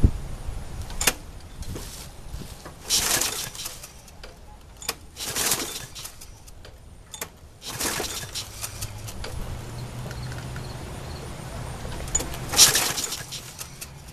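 Briggs & Stratton lawn mower engine being pull-started, the recoil starter cord yanked about five times in short rattling bursts without the engine catching; the carburetor is gummed with varnish from stale fuel.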